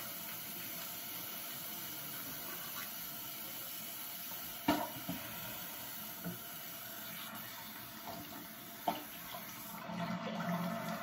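Bathroom tap running steadily into the sink during tooth-brushing, with a few sharp knocks, the loudest about halfway through.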